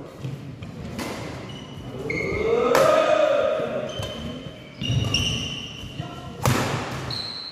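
Badminton rally: about four sharp racket-on-shuttlecock hits, with short high shoe squeaks on the court mat between them. A voice calls out briefly about three seconds in.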